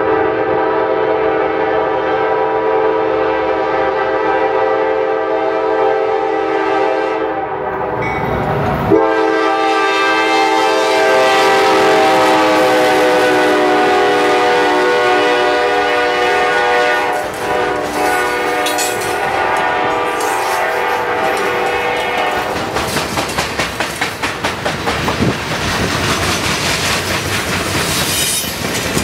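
GE C40-9W diesel locomotive sounding two long horn blasts as it approaches and passes. The first lasts about eight seconds; after a short break the second runs to about halfway and drops slightly in pitch as the locomotive goes by. Loaded freight cars then rumble past, their wheels clattering in a quick regular rhythm over the rail crossing.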